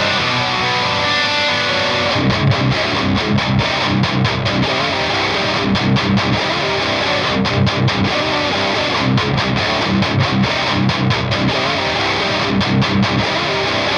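High-gain distorted electric guitar through a Diezel VH4 tube amplifier playing a metal riff over programmed drums. It holds ringing notes at first, then about two seconds in switches to tight, stop-start chugging.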